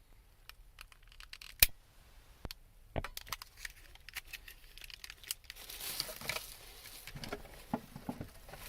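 Quiet handling sounds: scattered sharp clicks and taps, the loudest a little over a second and a half in, then a stretch of rustling, crinkling about six seconds in and a few soft knocks near the end.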